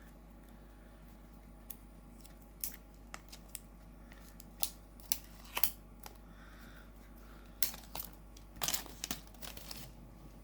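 Plastic shrink-wrap being picked at and peeled off a boxed card deck: scattered short crinkles and clicks, in small clusters.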